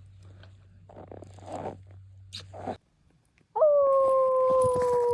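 Faint rustling, crunching steps over a low hum, then after a brief silence a loud long howl begins about three and a half seconds in: one sustained note that slides slowly down in pitch.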